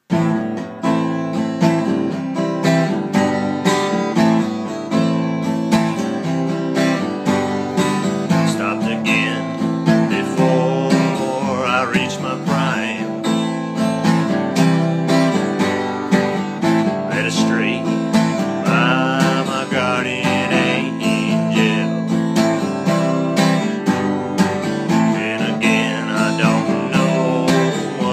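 A song recording with acoustic guitar strumming steadily to a regular beat. A higher melody line that bends in pitch comes in over it a few times.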